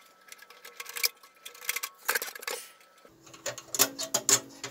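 A screwdriver backing screws out of a sheet-metal equipment cover: scattered light metallic clicks and ticks, with a short run of scraping about two seconds in.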